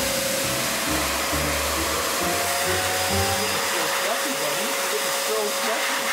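High-velocity pet dryer blowing a steady rush of air through a dog's thick coat.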